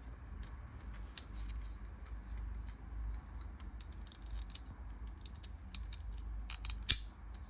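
Small plastic clicks and taps from the moving parts of a disassembled Dexcom One sensor applier being handled, with a cluster of clicks and one sharp click near the end.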